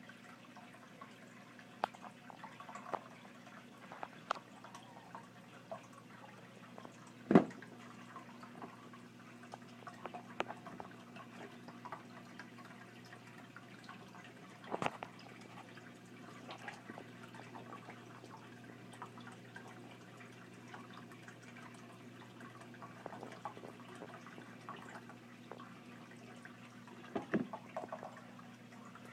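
Small, scattered clicks and taps of a bearded dragon feeding, over a steady low hum, with a loud sharp knock about seven seconds in and a few lighter knocks later.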